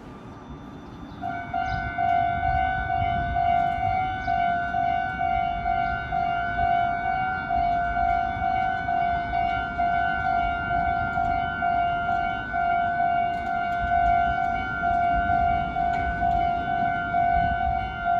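Japanese railroad crossing alarm starting about a second in, then ringing steadily in an even, rapid 'kan-kan-kan' of repeated bell tones.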